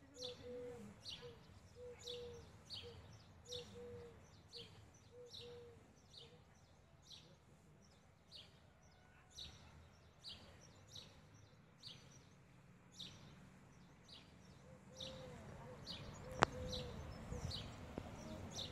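A small bird chirping over and over, about twice a second, with a lower repeated call from another bird. From about 15 s in, the low rumble of a MAN diesel railcar approaching from a distance grows louder, and a single sharp click comes about a second later.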